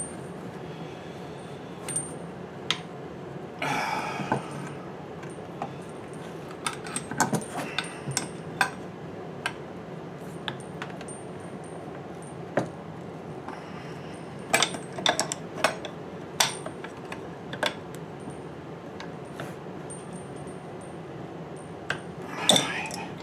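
Scattered metal clicks and clinks of hand tools: an adjustable wrench and locking pliers knocking against a brass fitting on a copper pipe nipple as it is tightened and handled, over a steady low background hum.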